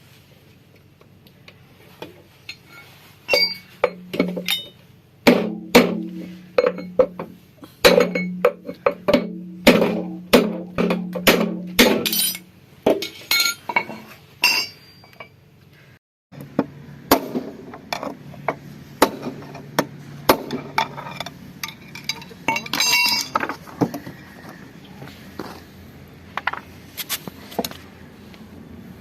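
Hammer blows on metal, roughly two a second, each leaving a ringing tone, as the old bearings are driven out of a washing machine's drum shaft housing. The blows are lighter after a break about halfway through.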